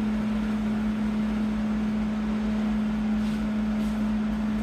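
Hobart Handler 210 MVP MIG welder switched on and idling with no arc struck: a steady hum on one clear note from its cooling fan and transformer.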